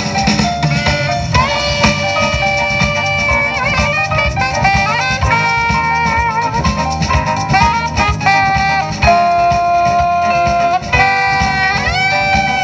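Live jazz ensemble playing: violin and saxophone carry the melody, with several sliding notes, over electric bass guitar, keyboard and drum kit.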